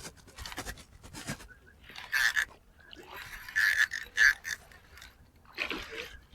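Spinning fishing reel being cranked in short, uneven bursts, a scraping whir with pauses between turns, the longest run about three seconds in.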